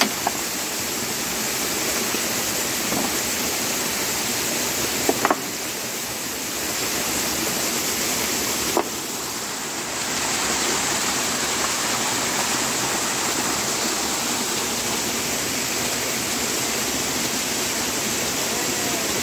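Small mountain stream cascading over rocks in a little waterfall: a steady rushing of water, with a few brief clicks about five and nine seconds in.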